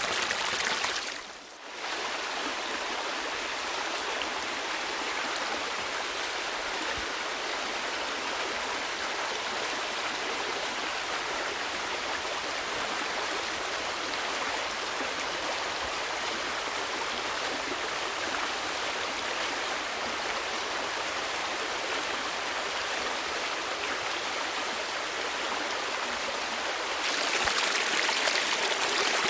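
Steady rushing of a flowing stream, with a brief fade and dip about a second and a half in and a louder, brighter stretch near the end.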